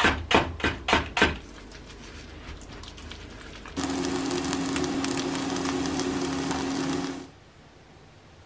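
A kitchen knife slicing Japanese long onion (naganegi) on a wooden cutting board: a quick run of about six chopping strokes in the first second and a half. From about four seconds in, a chijimi (Korean scallion and pork pancake) sizzling as it fries in oil in a frying pan, with a steady low hum under it. Both stop abruptly about seven seconds in.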